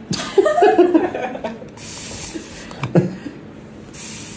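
A dog's jaws snapping shut on a piece of popcorn, a short chomp right at the start, followed by a person's brief laugh. A few small clicks come about three seconds in.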